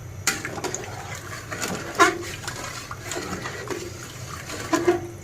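A pot of thick, wet khichuri bubbling as it cooks, with irregular pops and plops over a steady bubbling hiss.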